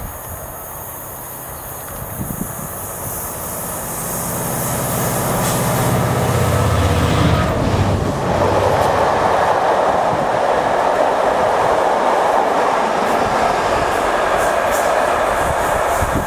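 A Class 67 diesel-electric locomotive's engine running as it hauls a train of passenger coaches past. Its low engine note builds and is loudest about six to eight seconds in, then gives way to the steady rolling noise of the coaches' wheels on the rails.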